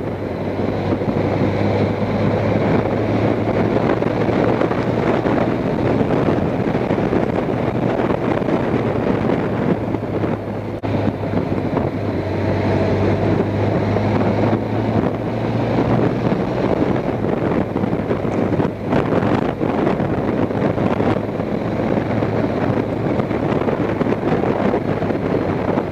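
Honda Crosstourer's V4 engine running steadily at cruising speed, mixed with heavy wind noise on the bike-mounted microphone.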